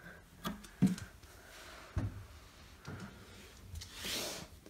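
A few light knocks and clicks from handling flat-pack furniture panels and fittings, the sharpest about a second in, with a short rustle near the end.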